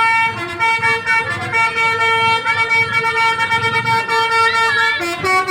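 Basuri telolet bus horn, a multi-trumpet musical air horn, playing a tune of held notes that step from one pitch to the next, the notes changing faster near the end.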